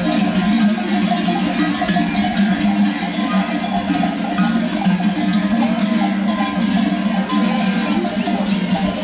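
Many livestock bells on a walking flock of sheep and goats clanking together without a break.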